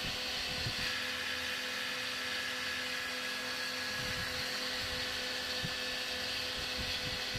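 Cotton candy machine running: a steady motor whine of the spinning head over an even hiss, unchanging throughout.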